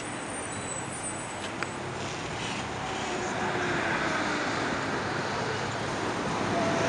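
Steady road traffic on a busy city street, slowly growing louder toward the end, with one brief click about a second and a half in.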